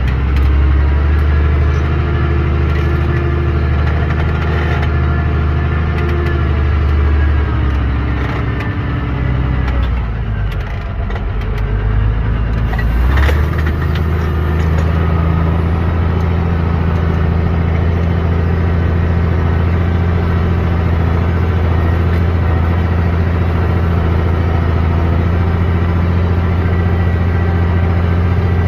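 Deutz-Fahr Agrotron tractor's diesel engine running steadily under the load of ploughing. The engine note drops and thins about ten seconds in, then picks up again about three seconds later and stays steady.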